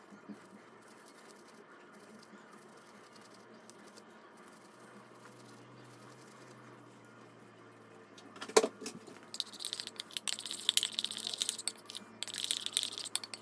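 Near silence for about eight seconds, then a single knock, then quick irregular clinking and scraping of a spoon in a bowl as a face-mask paste is mixed.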